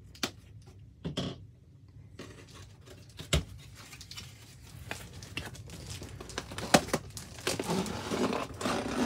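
Clear plastic wrap crinkling and tearing as a wrapped cardboard box is cut and opened, with a few sharp taps in the first few seconds; the crinkling grows louder through the second half.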